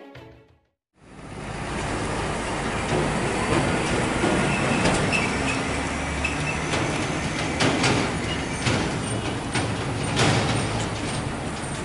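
After a brief silence, heavy diesel vehicles (trucks and a minibus) run in steady roadside traffic noise, with a few sharp knocks.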